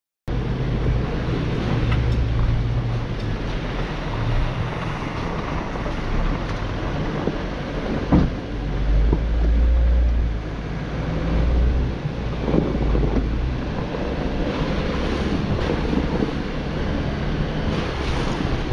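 Wind buffeting the microphone of a hood-mounted camera on a 4x4 driving a gravel forest road, over the low rumble of the engine and tyres. A single sharp knock about eight seconds in.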